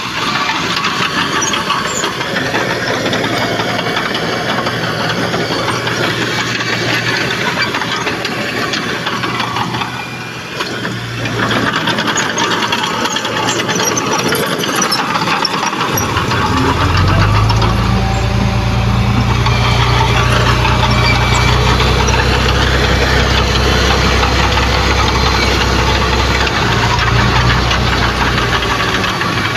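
Heavy diesel earthmoving machinery at work: engines running with a continuous dense clatter. About halfway through, a deep, steady engine drone comes in and holds nearly to the end.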